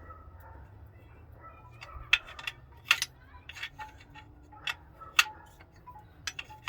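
End wrench clicking and clinking against a bolt and nearby engine metal in irregular sharp metallic clicks, with a few louder clanks, as the bolt is worked loose a short turn at a time without a ratchet.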